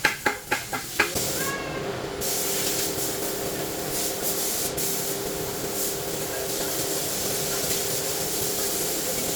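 Quick sharp clicks, about four a second, for roughly the first second. Then a steady hiss with a low hum under it, like a workshop tool or machine running.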